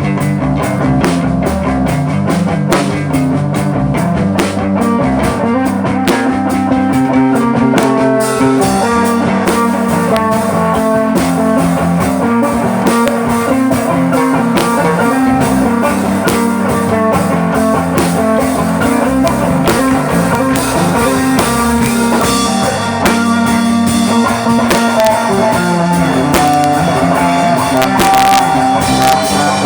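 A rock band playing guitar and drum kit, loud and continuous. The sound grows fuller and brighter about eight seconds in.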